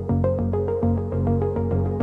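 Background music: upbeat electronic synthesizer track with short repeating notes over a steady bass.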